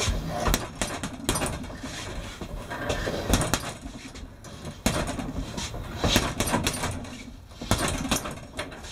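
Boxing gloves thudding into a heavy punching bag in short flurries of punches, with brief pauses between combinations.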